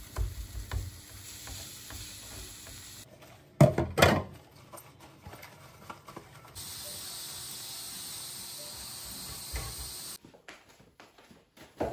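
Kitchen cooking sounds in quick succession: a wooden spatula stirring chopped vegetables sizzling in a frying pan, two loud clattering knocks about 3.5 to 4 seconds in, then a steady hiss for about three and a half seconds.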